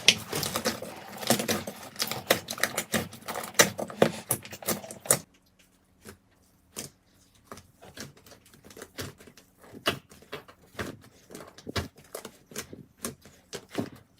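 Slime being squeezed and worked by hand, giving a dense run of sticky clicks and pops. About five seconds in it drops abruptly to sparser, quieter clicks.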